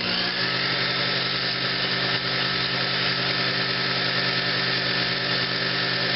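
Sherline benchtop lathe running steadily: a constant motor hum with an even hiss over it.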